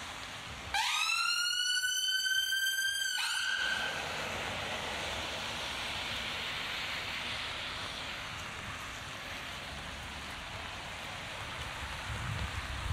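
An emergency vehicle siren sounded briefly: one tone that slides up about a second in, holds, rising slightly, for about two and a half seconds, then cuts off. Steady rain hiss runs underneath.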